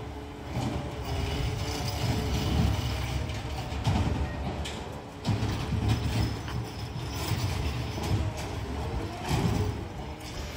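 Peterbilt 520 McNeilus ZR automated side-loader garbage truck working a little way down the street: its diesel engine runs with a low rumble that rises and falls as the hydraulics cycle, with a few sharp clanks about four to five seconds in.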